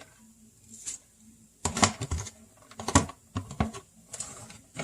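Irregular clicks and clattering taps of kitchen handling while greens are added to a pan of cauliflower rice, with a few sharper knocks about two and three seconds in.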